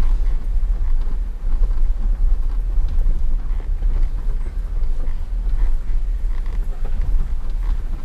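A vehicle driving slowly over a rocky gravel trail: a steady low rumble with scattered small ticks and crunches of stones under the tyres.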